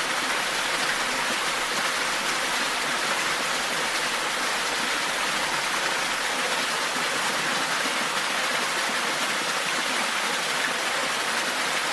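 Steady, even rushing of running water, a constant bed with no breaks or distinct events.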